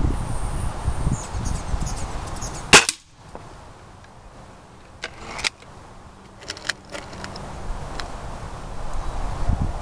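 A single shot from a .22 break-barrel spring-piston air rifle (Beeman RS2) about three seconds in, over a low rumbling noise that stops at the shot. Several lighter clicks follow.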